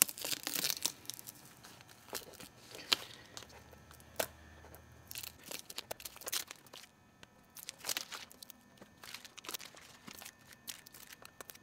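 Adhesive masking film being peeled off a painted, carved walnut board: crackling, tearing rips in short irregular spells as the film lifts from the wood and small pieces are picked out of the carved letters.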